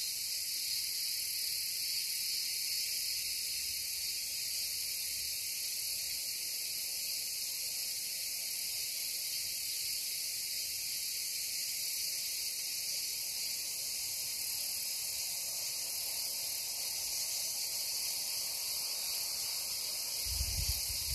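A chorus of insects buzzing steadily at a high pitch.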